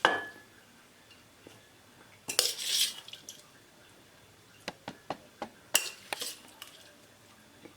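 A serving spoon clinking and scraping against a pot and plate as food is dished out: a sharp knock at the start, a longer scrape about two and a half seconds in, then a run of quick clicks and two louder clinks about six seconds in.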